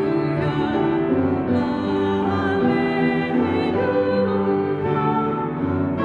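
A woman cantor singing a slow melody in long held notes, the sung Gospel acclamation (Alleluia) of the Mass.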